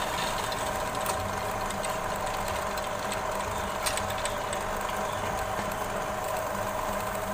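Pillar drill driven by a 2 hp electric motor, running steadily with its bit boring into an iron pipe.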